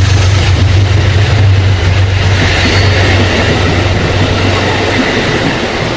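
Amtrak passenger train running through the station at speed without stopping: a loud, steady rush of wheels on rail. Under it runs a low steady hum that drops away about five seconds in.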